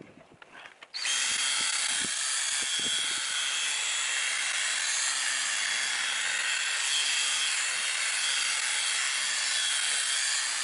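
Cordless drill spinning a 3-inch polishing pad against a plastic tail-light lens, buffing it with polish. It starts about a second in and runs at a steady speed.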